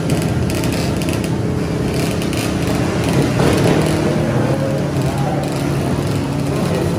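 Small drag-racing motorcycle engine running steadily at idle.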